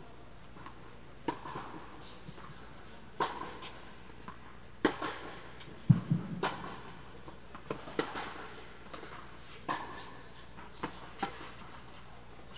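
Tennis rally on an indoor court: about ten sharp pops of the ball off rackets and off the court, irregularly spaced and echoing in the big dome. The loudest, deepest hit comes about six seconds in.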